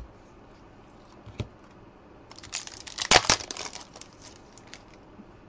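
A few light taps, then a trading card pack's wrapper being torn open and crinkled by hand, a busy crackling rustle about two seconds long, loudest in the middle.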